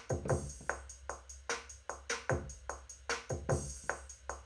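Electronic drum loop at 150 BPM from Maschine 2's Air Bag Kit: deep kicks that fall in pitch, snares, and steady closed hi-hat ticks about five a second. An open hi-hat hiss comes in twice.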